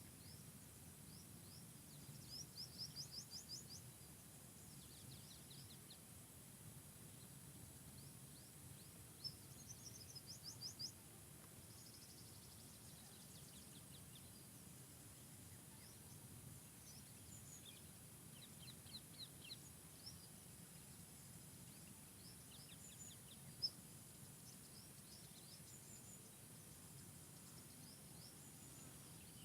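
Small birds chirping in short, quick runs of high notes every several seconds, over a faint low background rumble.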